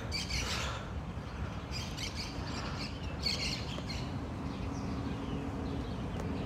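Birds chirping in a tree: three short bursts of calls over a low steady rumble.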